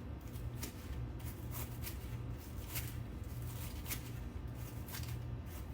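Sharp kitchen knife slicing through a head of cabbage on a cutting board, shredding it thin: a run of short, crisp cuts, about two a second, over a steady low hum.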